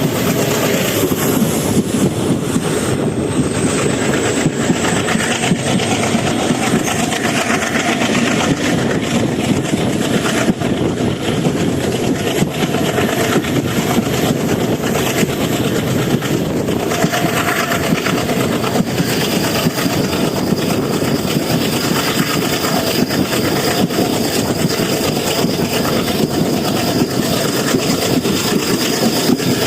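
WDG3A ALCO diesel locomotive engine chugging loudly and steadily under heavy acceleration as it hauls an express train away from a station.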